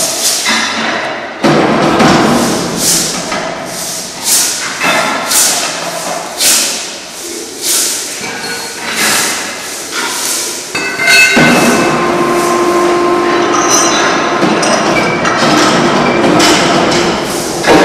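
Steel concrete-pole moulds clanking and being knocked as workers handle and fit them, a sharp metallic strike about every half second to a second. Steady ringing tones join under the strikes about two-thirds of the way in.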